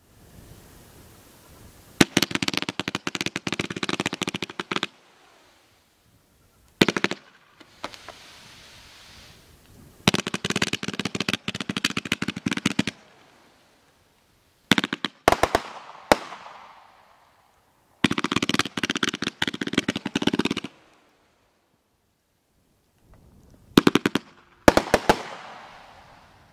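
Texas Outlaw "Ninja Suit" consumer fireworks cake firing in about six volleys of rapid crackling pops, each lasting up to about three seconds, with a soft hiss in some of the gaps between them.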